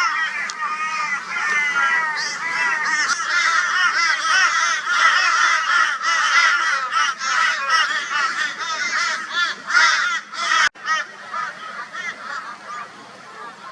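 A flock of crows calling loudly and raucously over one another, mobbing a barn owl. The din thins to sparser calls about eleven seconds in.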